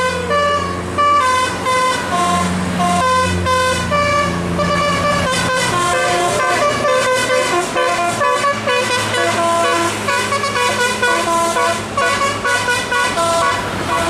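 A tour bus's telolet multi-tone musical horn playing a melody of quick stepped notes, several pitches sounding together, with the bus engine running underneath for the first several seconds.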